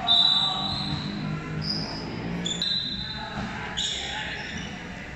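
Volleyball play echoing in a large sports hall: a ball struck once about two and a half seconds in, short high squeaks of shoes on the court, and players' voices in the background.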